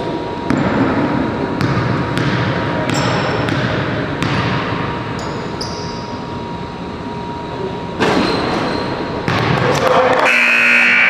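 Basketball game play in a gym: a ball bouncing on the court in irregular thuds, echoing in the large hall. Near the end the noise turns louder and denser.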